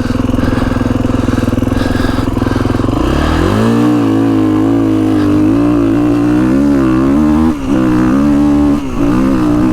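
2022 Kawasaki KX450X's single-cylinder four-stroke engine running, then revving up hard about three seconds in as the dirt bike pulls away from a start. It holds at high revs under load, wavering slightly, with two brief dips near the end.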